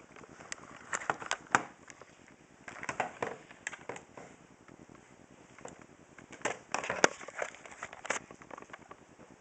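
Handling noise: irregular clicks, knocks and rustles in three short clusters, the loudest click about seven seconds in.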